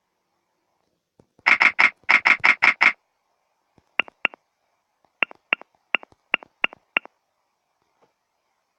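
A quick run of about eight harsh buzzing pulses, then about eight short high clicks at an irregular pace of roughly three a second: a smartphone's on-screen keyboard clicking as a message is typed.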